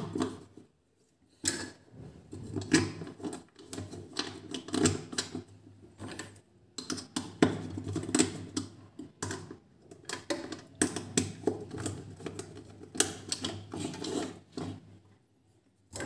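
Irregular plastic clicks, taps and scrapes of hands handling and fitting a plastic batten bulb holder and its wires, starting about a second and a half in.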